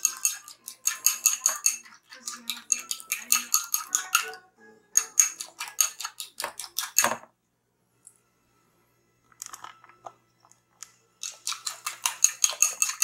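Chopsticks beating a raw egg in a small ceramic bowl: rapid clicking in runs of a second or two, broken by short pauses and by a longer pause a little past the middle.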